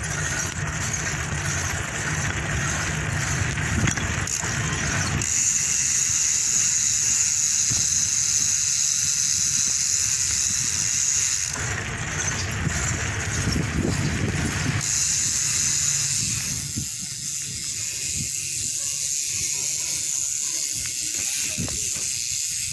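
GUB bicycle rear hub with stainless pawl springs, its freehub clicking as a fast continuous buzz while the wheel spins freely. The sound changes character in stretches every few seconds.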